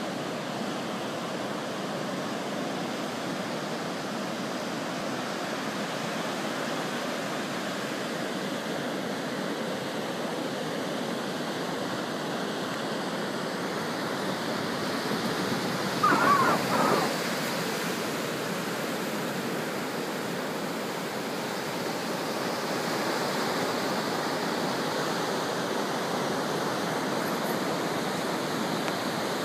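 Ocean surf breaking and washing up on a sandy beach, a steady rushing noise. About halfway through, a brief high call rises above the surf for about a second.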